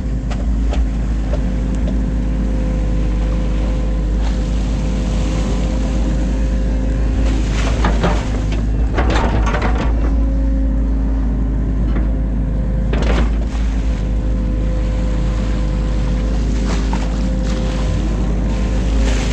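New Holland Kobelco E 50.2 mini excavator running steadily from inside the cab, with a steady whine over the engine. A few short noisy bursts come at about 8, 9 and 13 seconds as the boom and bucket work.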